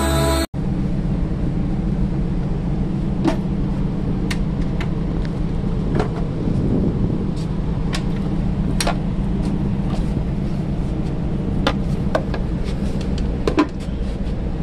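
Steady low hum of a ship's engine heard on deck, with scattered sharp clicks and knocks as the cover of an EPIRB's bracket housing is opened and the beacon is lifted out of it.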